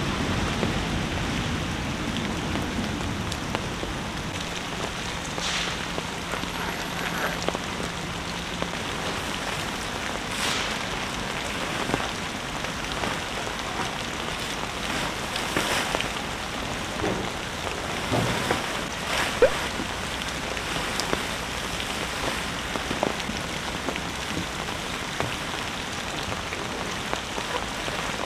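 Heavy rain falling steadily on a wooden deck and tent fabric, with scattered short rustles and crinkles of a nylon tent fly being pulled over a pop-up tent.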